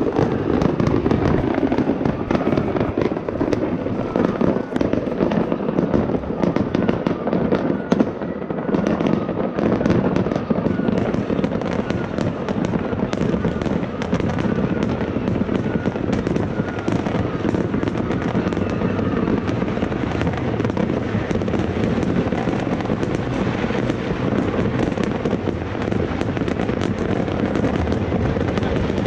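Many fireworks and firecrackers going off at once across a city, a continuous dense crackle of bangs and pops with no pause.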